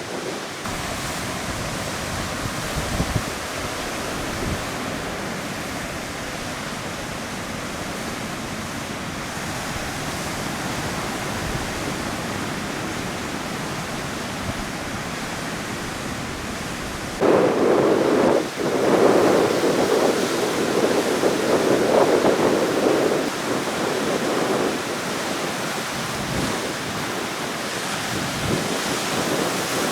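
Heavy surf and strong onshore wind rushing steadily, driven by the northeast monsoon. A little over halfway through, a louder surge lasts about six seconds, then settles back.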